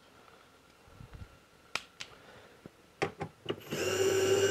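A few light clicks and taps as the driver bit is fitted to the screw head, then about three and a half seconds in a Hilti cordless screwdriver starts and runs with a steady whine, backing out a T20 screw that holds a handle on the plastic tool cart.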